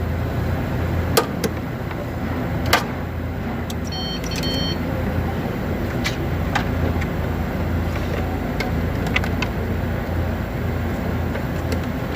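Steady low mechanical hum with a few sharp clicks, and a short high electronic beep in quick pulses about four seconds in.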